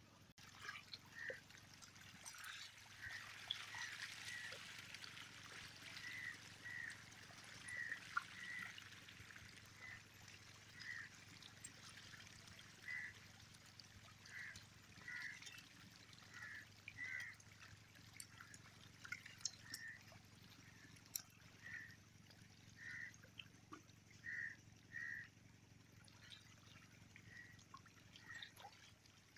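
Faint water sloshing and trickling from a dense shoal of hybrid magur catfish churning at the pond surface as they feed, with small splashes and short high blips about once a second.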